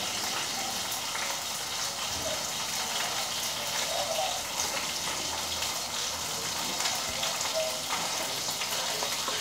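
Pork chops frying in oil in a pan: a steady sizzle with small crackles throughout.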